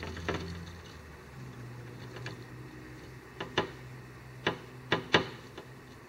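Eurasian nuthatch pecking at a window pane: sharp, irregular knocks on the glass, several in quick pairs, the loudest near the end.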